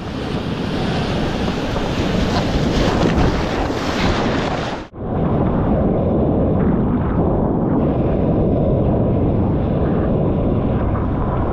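Strong wind buffeting the microphone over heavy storm surf. About halfway through the sound cuts abruptly to a second stretch of the same wind and surf noise, duller in tone.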